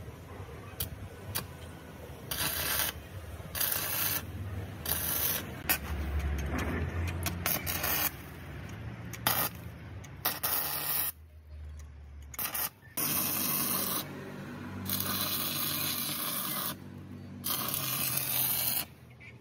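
Stick-welding arc crackling and hissing on a steel excavator track idler. It comes in several runs of a second or two each, breaking off and striking up again between them.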